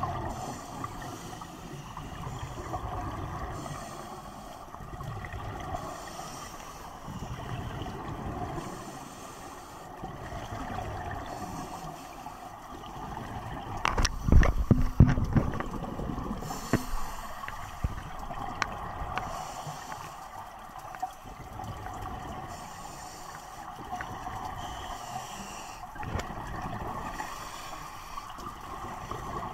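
Underwater scuba ambience through an action camera's waterproof housing: a diver's regulator breathing, with a hiss every few seconds and rumbling bursts of exhaled bubbles over a steady hum. A cluster of loud knocks about halfway through as the camera is jostled.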